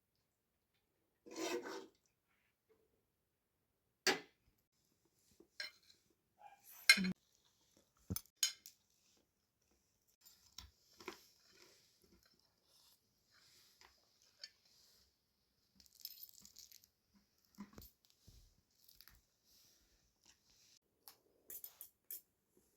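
Scattered clinks and knocks of dishes and cutlery being handled, one at a time with pauses between; the loudest knock comes about seven seconds in.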